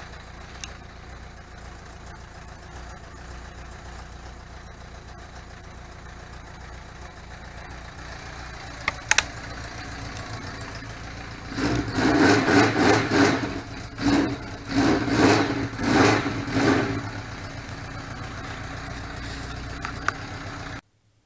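Honda Nighthawk 750 inline-four motorcycle engine idling, with a couple of sharp clicks about nine seconds in. The throttle is then opened several times in quick loud surges for about five seconds before the engine settles back to a steady run, and the sound cuts off suddenly near the end.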